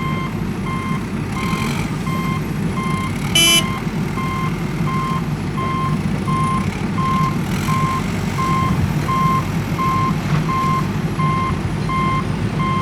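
Vehicle reversing alarm beeping steadily, about three beeps every two seconds, over a steady low engine rumble. A brief loud tone sounds about three and a half seconds in.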